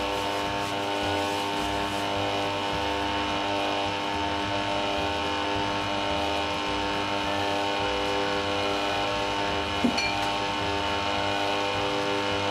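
Bosch stand mixer's motor running steadily at low speed, with a steady whine, as its beater works flour into creamed butter and sugar for a biscuit dough. One sharp knock about ten seconds in.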